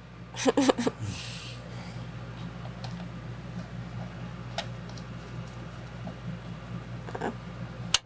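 Faint ticks and a brief scrape from a small screwdriver turning the tiny retaining screw that fastens an M.2 SSD to the motherboard, over a steady low hum.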